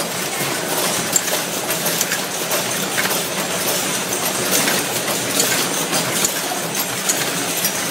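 Automatic cartoning machine for injection ampoules running: a steady mechanical clatter sprinkled with many small, irregular clicks.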